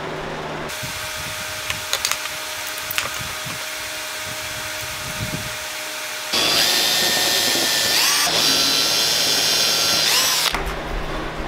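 Cordless drill running in two short bursts at the screw holes of a small brass hinge on a wooden box, its motor whine rising as it spins up each time. Before that, a few light clicks from handling the hardware.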